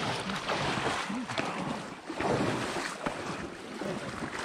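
Shallow swamp water sloshing and splashing in irregular swishes as someone moves through it.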